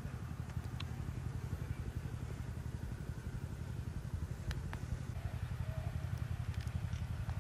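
A small engine running steadily with a fast, even low throb, plus a couple of faint ticks.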